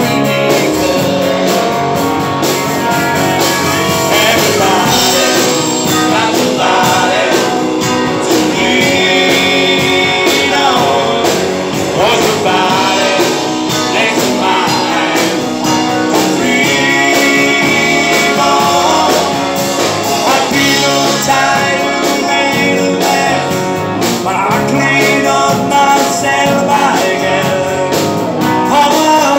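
Live rock band playing with electric guitars, and a man singing into a microphone.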